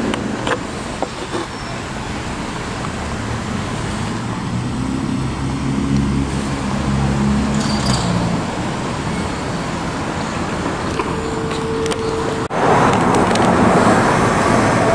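Street traffic: car engines and tyre noise, with a low engine hum in the middle and a passing vehicle growing louder near the end.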